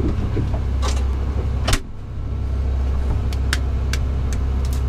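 A steady low hum with one sharp knock a little under two seconds in, after which the hum dips briefly and returns. Several light clicks follow near the end as an egg and metal kitchen tongs are handled.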